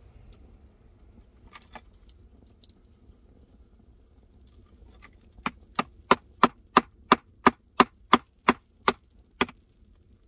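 A hatchet knocking down on a small upright piece of firewood set on a log block. A few faint handling clicks, then about halfway through a steady run of about a dozen sharp knocks, roughly three a second.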